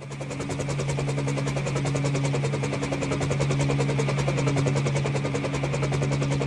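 Helicopter flying: a fast, steady rotor chop over a constant engine drone, fading in at the start.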